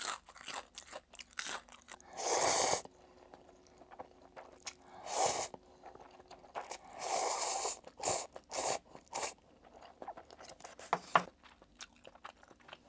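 Close-miked mouth sounds of eating: crunchy fried squid tempura being chewed with sharp crunches, broken by three longer slurps of spicy stir-fried noodles in the middle.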